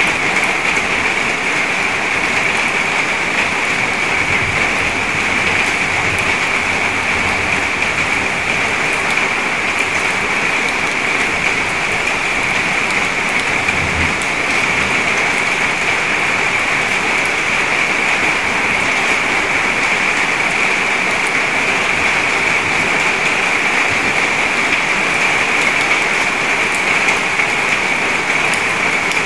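Steady rain falling onto the water of a puddle, a dense, even hiss of drops striking the surface. There is a faint low thud about fourteen seconds in.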